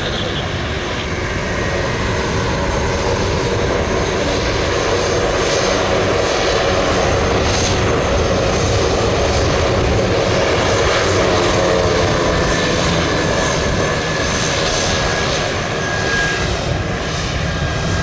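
Twin Pratt & Whitney PT6A turboprops of a Beech B200C Super King Air running as it taxis and turns around on the runway: a steady turbine whine over propeller noise. It grows slightly louder through the middle of the turn.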